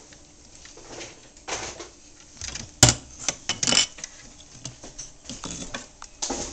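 Small clear drinking glasses clinking and knocking together and against a hard worktop as a child handles them, in scattered short clicks with one sharp knock about three seconds in and a short clatter just after.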